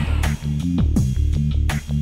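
Background music: an electronic track with a deep bass line and a steady beat of drum hits.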